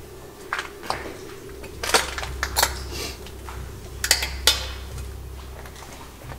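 Sharp clinks and crunches of broken glass and metal debris, about six scattered strikes, the loudest about two and four and a half seconds in, over a low steady hum.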